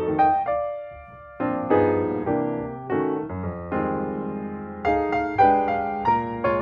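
Background music: a light electric piano melody with chords, easing off briefly about a second in before picking up again.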